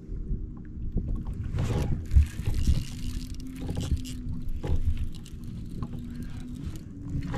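Water lapping and slapping against a kayak hull, with wind rumbling on the microphone. A couple of louder washes of water noise come about two seconds in and again near the end, with a few dull knocks.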